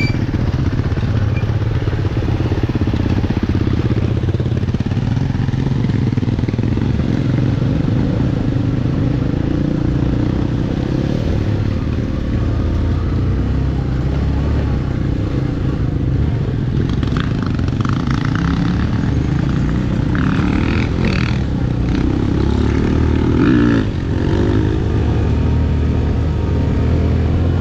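Motorcycle engine running steadily under way, with some clatter and a brief louder spell a little over three-quarters of the way through.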